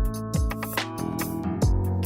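Background music with a steady electronic beat: a deep kick drum and hi-hats over sustained synth chords.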